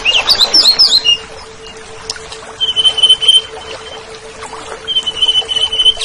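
Orange-headed thrush (anis merah) singing. A quick burst of varied, rising and falling whistled notes opens the song, followed by two runs of rapid, even trilled notes of about a second each, one in the middle and one near the end. A steady low hum runs underneath.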